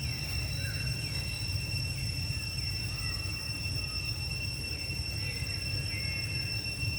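Outdoor forest ambience: a steady high-pitched whine held on one note, over a low rumble, with short falling chirps about once a second.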